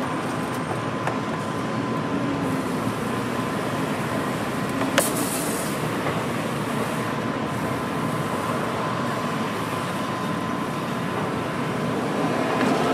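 Steady background noise of a street food stall, with a constant faint high tone running through it and a single sharp click about five seconds in.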